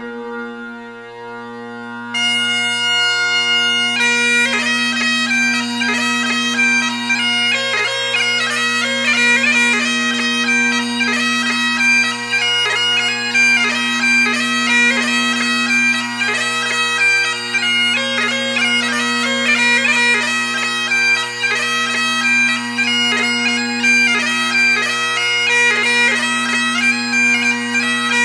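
Bagpipes playing: the steady drones sound first, the chanter comes in about two seconds in, and a pipe tune plays over the unbroken drones from about four seconds on.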